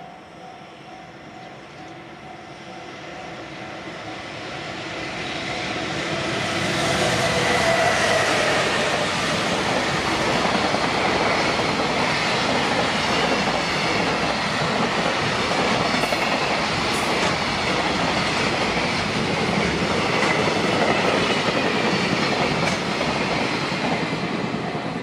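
Container freight train passing close by, its wagons and wheels running on the rails. The sound builds from about two seconds in to full loudness by about seven seconds and then holds steady.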